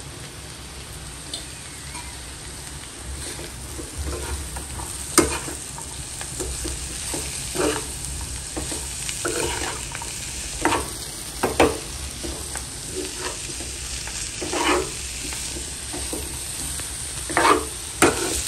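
Spoon stirring cabbage and chana dal in a kadhai, with irregular scraping strokes against the pan over a steady low sizzle.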